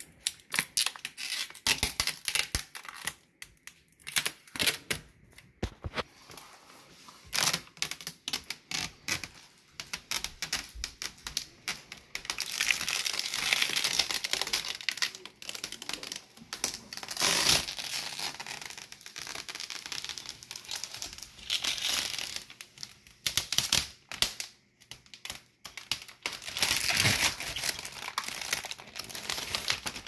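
Clear plastic protective film being peeled off a new dishwasher's stainless steel front: crackling and crinkling as the adhesive lets go. Longer stretches of steady peeling hiss come in the middle and near the end.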